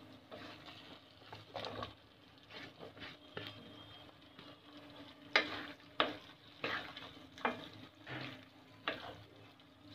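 A spoon stirring a thick mushroom and pea curry in a steel pan, scraping and knocking against the metal in quick strokes from about halfway through, over a faint sizzle.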